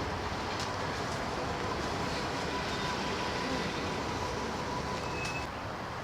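Steady street traffic noise: the low rumble of vehicles on a city road, with a faint steady whine running through it.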